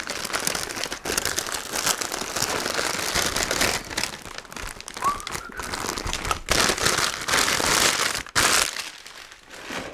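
Crinkly white wrapping and a yellow bag crackling and rustling as they are pulled off and unfolded by hand, dying down near the end.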